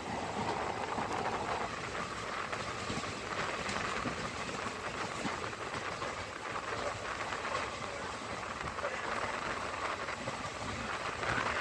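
Running noise of an Indian Railways passenger train heard from inside a moving coach: a steady rush of wheels on rail and passing air.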